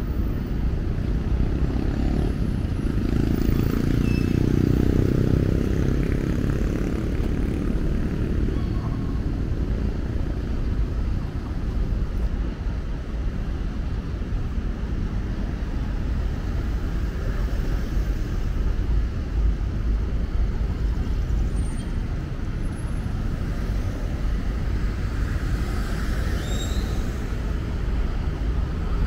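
City street traffic noise: a steady low rumble of passing cars, swelling as one vehicle goes by close a few seconds in.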